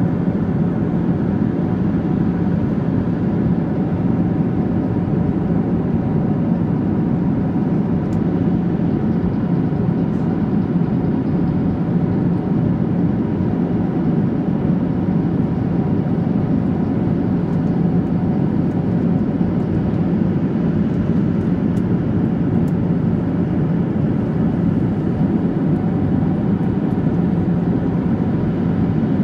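Steady in-flight cabin noise of a Boeing 737-800: an even rush of airflow and engine drone with a low, constant hum, unchanging throughout.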